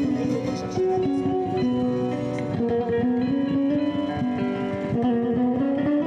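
Kazakh dombra, a two-stringed long-necked lute, played with rapid strumming, a melody of changing notes running through the quick strokes.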